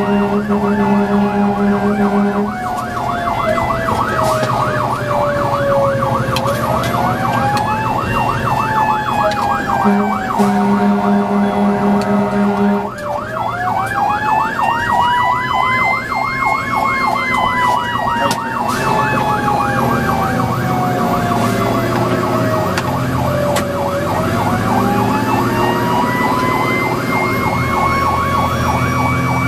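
Fire engine sirens heard from inside the cab on an emergency run. A slow wail winds up over a few seconds and coasts back down twice, under a fast electronic yelp. A low air horn blasts at the start and again for about three seconds around ten seconds in.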